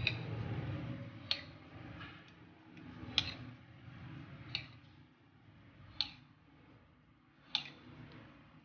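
A spoon tapping sharply against the dishes six times, about every one and a half seconds, as marinade is scooped out and spread over raw chicken.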